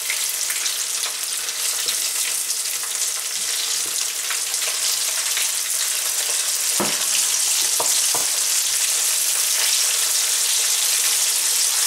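Chicken strips coated in potato starch deep-frying in hot oil in a frying pan, a steady sizzle. A wooden spatula stirs them, knocking against the pan a few times past the middle.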